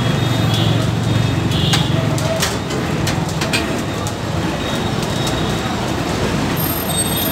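Steady din of a busy roadside street-food stall: traffic noise and indistinct background voices, with scattered sharp clicks and clinks and a low hum during the first two seconds.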